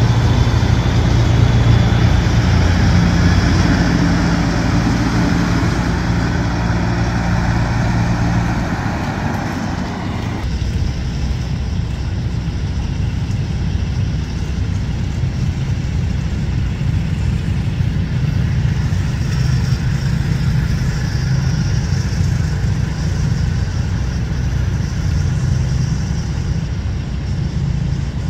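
Diesel engine of a semi tractor running as the truck drives slowly past, a loud low engine note. About ten seconds in the sound changes abruptly to a quieter, steady low engine rumble of vehicles approaching at walking pace.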